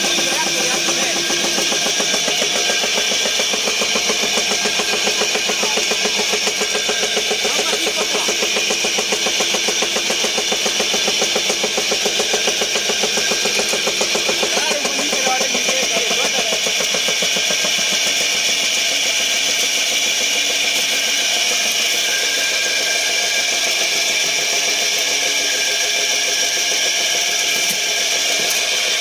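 Charcoal briquette extruder driven by its 5 hp electric motor, running steadily as it presses out briquettes: a constant mechanical hum with several steady high tones.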